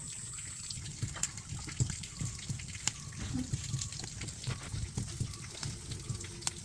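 Water running and splashing, as from a kitchen tap into a sink, with scattered small clicks and clinks.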